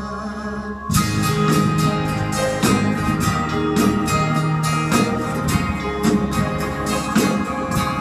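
Band music with a guitar leading an instrumental solo; the full band comes in louder about a second in, with a steady beat.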